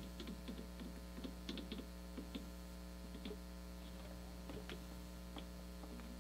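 Faint, irregular small clicks and taps of a CPU water block's mounting springs and posts being handled and fitted, over a steady electrical hum.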